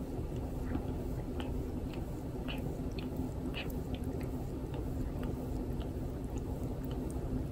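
A cat's rough tongue licking through a person's hair: short rasping, gritty licks with wet lapping, a stroke every half second or so.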